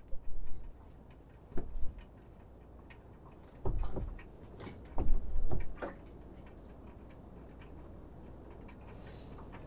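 Spinning reel (Penn Clash II 3000) turning with a faint, steady ticking as the lure is worked. Several sharp knocks and low thumps come in the first six seconds and are loudest about four to six seconds in.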